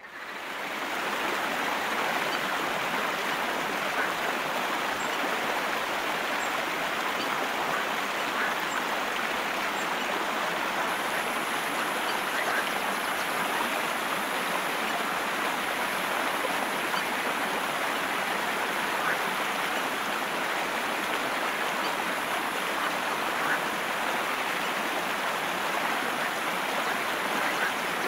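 Shallow stream running over rocks and stones: a steady rush of water that fades in over the first second or so.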